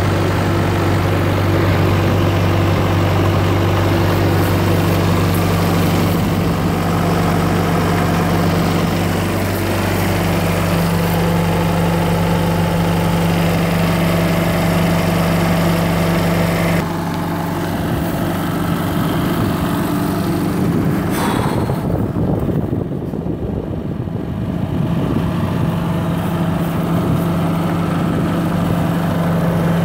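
2008 JCB 8040 mini excavator's diesel engine idling steadily, with one short click partway through.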